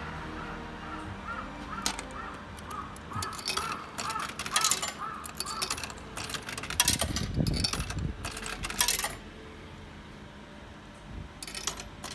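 Coins dropping into a Fuji Electric noodle vending machine, clinking and clattering through its coin mechanism in a run of sharp clinks, loudest about seven seconds in. A short call repeats about three times a second in the background.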